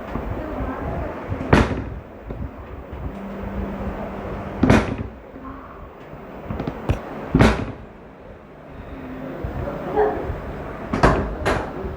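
About six sharp, separate impacts spread irregularly over a low background murmur, two of them close together near the middle and two more near the end.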